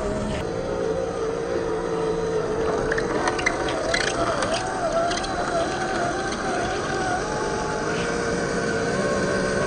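Electric motor and gear drivetrain of a 1/10-scale RC crawler whining, the pitch wavering up and down with the throttle. Scattered short clicks about three to five seconds in.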